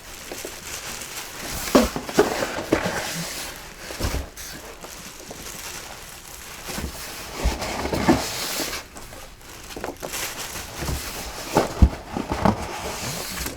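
Packing peanuts rustling as hands sift through them, with irregular light clicks and knocks.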